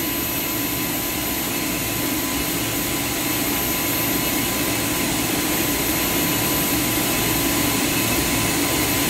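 PP melt-blown filter cartridge machine running: a steady rush of air like a large blower, with a low hum and a faint thin whine.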